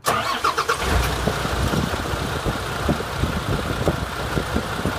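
Duramax diesel engine in a roll-off truck starting: a brief crank that catches within about a second, then running steadily at idle with diesel knock.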